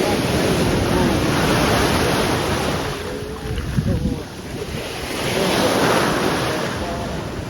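Sea waves breaking and washing up the beach, surging twice, with wind buffeting the microphone.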